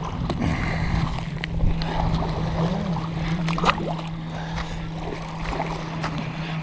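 A boat engine runs with a steady hum, over wind and water noise, with a few scattered knocks.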